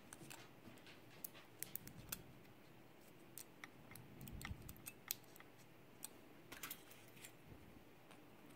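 Faint, scattered small metallic clicks and taps of a pin-tumbler lock and its tools being handled while the lock is taken apart, with a soft handling bump about halfway through.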